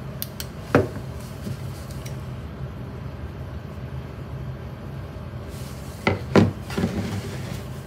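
A few knocks and clacks of hard objects being handled and set down on a surface: one about a second in and a quick cluster near the end, over a steady low hum.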